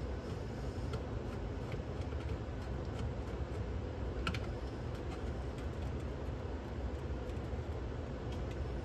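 Small, sparse clicks of a screwdriver turning screws in a cassette deck's metal chassis, with one sharper click about four seconds in, over a steady low hum.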